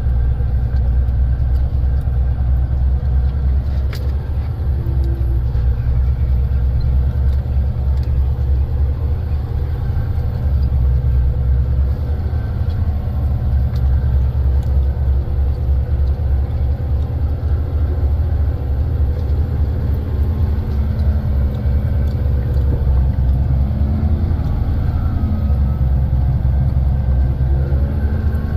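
Heavy dump truck's diesel engine running steadily in low gear under load, a loud low rumble, as the truck, loaded with stone, is held back descending a steep grade at about 1400–1500 rpm.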